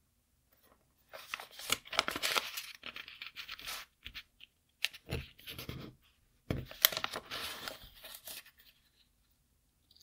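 A sheet of origami paper rustling and crinkling as it is folded and creased by hand. It comes in three spells, with sharp crackles where the folds are pressed flat.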